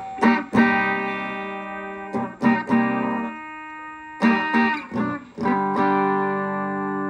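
Electric guitar chords strummed through a Vox VR30 Reverb guitar amp on its clean channel, a few strums that ring out and then stop. The reverb knob is turned fully up, yet no reverb comes out: the amp's reverb circuit is faulty.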